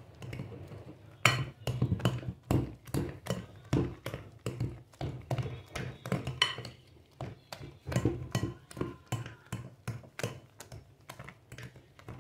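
A metal fork mashing soft banana mixture in a glass bowl: a run of irregular taps and clinks of the fork against the glass, about two or three a second.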